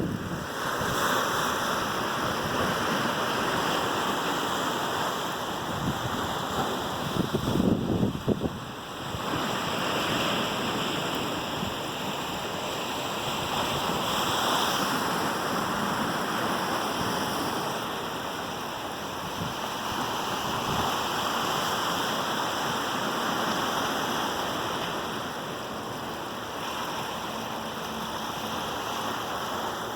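Rough sea: a steady rush of waves and spray, with a louder burst of low thumps about eight seconds in.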